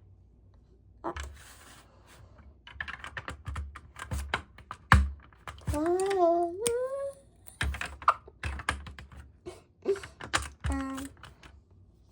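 Plastic LEGO bricks clicking and clattering as pieces are handled, sorted and pressed into place. There is a short hum-like voice sound about six seconds in, and another brief one near the end.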